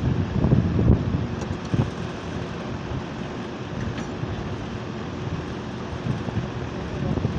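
Outdoor unit of a 4.5-ton split-type air conditioner running: a steady mechanical hum under the rush of the condenser fan, with louder low rumbling bumps in the first second and again near the end. The owner puts the unit's overheating and shutting down down to a failing bearing in the replacement compressor.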